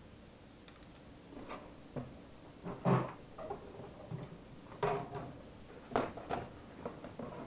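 Cardboard box being handled: a series of knocks, taps and scrapes as parts are set down and the box lid is lifted open, loudest about three and five seconds in.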